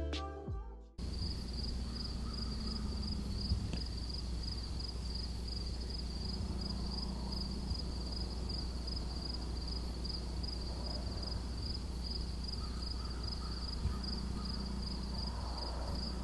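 Background music ends about a second in, leaving a steady chorus of insects, most likely crickets, chirping in a high, even pulse over a low rumble.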